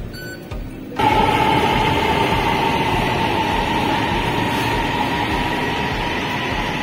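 Metro train pulling into the platform: a loud steady rumble with a high electric whine that starts abruptly about a second in and slowly eases off as the train comes to a stop.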